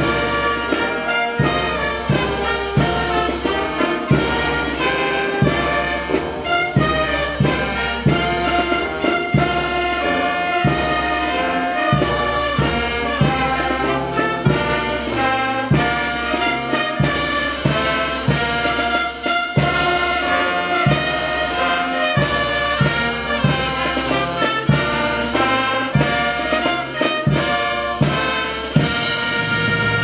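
Military brass band playing, with sousaphone, trumpets, saxophone and a drum beating steadily under the melody.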